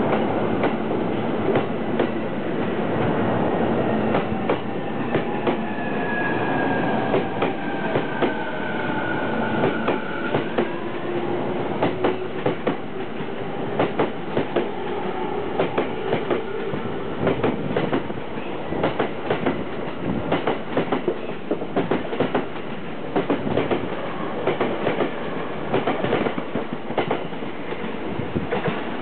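JR East E231-1000 series electric train pulling out and gathering speed past the platform end. Its wheels clack over rail joints, the clacks coming faster and denser from about halfway in, and in the first ten seconds or so traction-motor tones glide in pitch.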